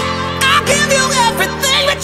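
Background music: a singing voice with heavy vibrato over held chords.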